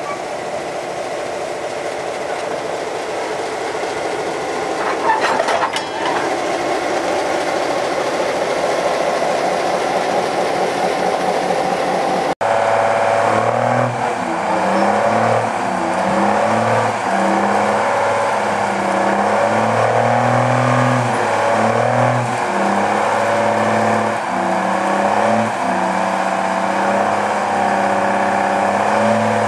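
Diesel shunting locomotive engine running as the locomotive rolls by, with a brief squeal about five seconds in. After a sudden cut about twelve seconds in, a second small diesel shunter's engine runs under load, its pitch rising and falling repeatedly as it moves a rake of wagons.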